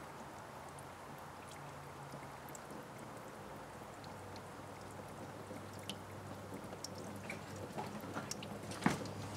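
A thin stream of water from a sunroof drain tube trickling and spattering onto the wiper linkage, with scattered drips and a sharp tap near the end. The drain is running freely, draining like it should.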